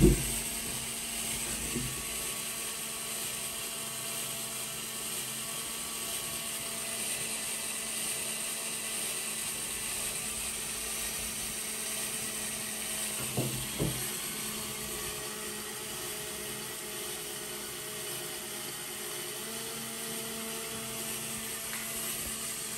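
Small Lego electric motor whirring steadily as it turns a long Lego crankshaft and pistons, with the plastic parts clattering. The builder says the overlong crankshaft buckles and does not run smoothly. A couple of brief knocks come about halfway through.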